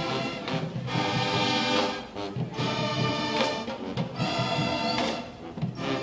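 Marching band playing: the brass section sounds held chords in short phrases, with percussion hits marking the beat and brief gaps between phrases.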